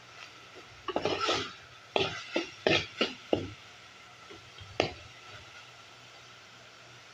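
A spoon stirring and scraping ground beef in an aluminium pot, with a quick run of scrapes and knocks against the pot from about one to three and a half seconds in and one more near five seconds.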